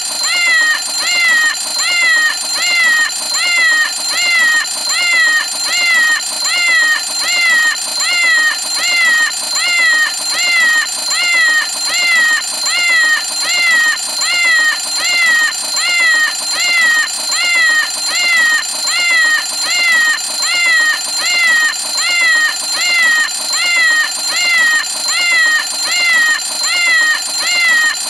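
Cartoon cat-faced alarm clock (the 'Meow o' Clock') ringing with a meowing alarm: a synthetic cat meow repeated over and over, about three meows every two seconds, each one bending up and then down in pitch, over a steady high whine.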